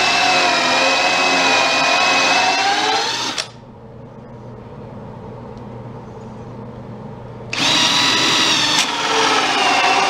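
Power drill driving screws into wood: a steady motor whine that sags in pitch under load, then stops about three and a half seconds in. It starts again about four seconds later, with a small click shortly after.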